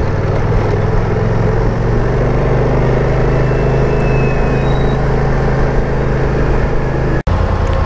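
BMW C650 GT scooter's parallel-twin engine running steadily while riding, under a haze of road and wind noise. The sound breaks off for an instant near the end and picks up again with a steady engine tone.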